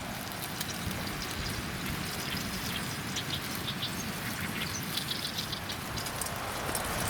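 Wood campfire crackling with small irregular pops over a steady rushing outdoor background.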